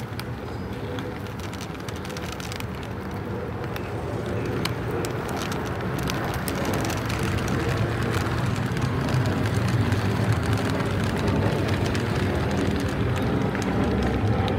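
A steady low rumble, like passing traffic, that grows louder through the second half, with scattered light rattles of dry cat kibble being poured into a plastic jar.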